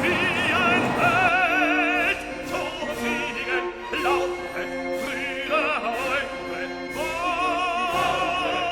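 Background music: operatic singing with strong vibrato over classical accompaniment.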